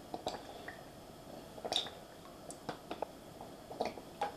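Cooking oil being poured into a deep frying pan, heard faintly as a few scattered soft drips and small splashes.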